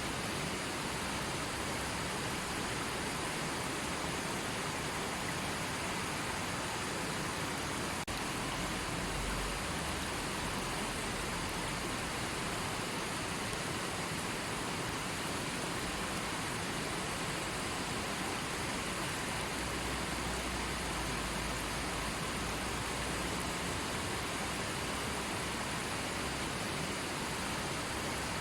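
River water flowing and rushing steadily, a constant even wash of noise, with a couple of brief low rumbles that are likely wind on the microphone.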